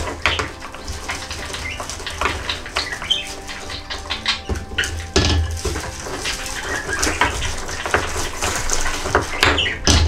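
Plastic ice-cube bag crinkling as ice cubes are pressed out of it and dropped clinking into a stainless steel tumbler of coffee. It comes as a run of irregular clicks and clatters, with heavier knocks about five seconds in and near the end.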